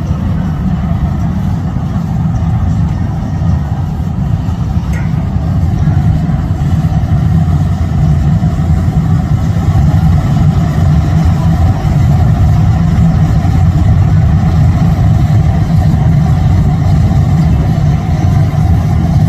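Loud, steady low roar of glassblowing-studio furnace burners and blowers, growing a little louder about seven seconds in.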